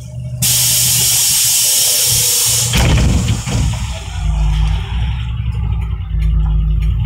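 Loud hiss of compressed air from a NefAZ 5299 CNG city bus's pneumatic system. It starts abruptly, cuts off after about two seconds and ends in a thump. The bus's engine then runs with a low rumble.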